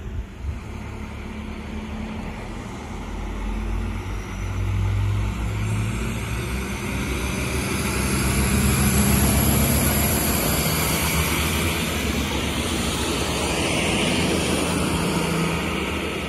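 Arriva Alstom Coradia LINT diesel multiple unit passing by: its diesel engines drone steadily under the rumble and hiss of wheels on the rails, growing louder to a peak about halfway through as it passes closest, then easing off as it draws away.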